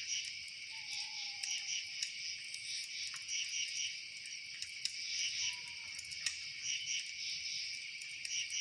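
Steady chorus of crickets and other insects, a dense high pulsing trill, with a few sharp clicks scattered through it.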